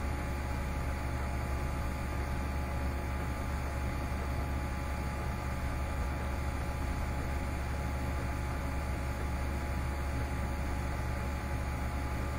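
Steady low hum with an even hiss, unchanging throughout: the background noise of the recording set-up with no other sound events.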